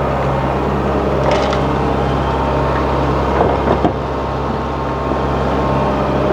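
Heavy diesel engine of earthmoving machinery running steadily under a constant hum, with a few short metallic knocks about a second in and again around the middle.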